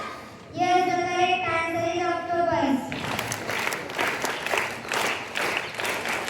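Children's voices calling out together on one long held note for about two seconds. From about three seconds in, a group of children applaud.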